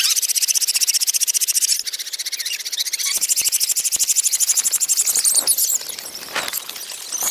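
Loud insect chorus, a fast, even pulsing buzz that eases off about six seconds in.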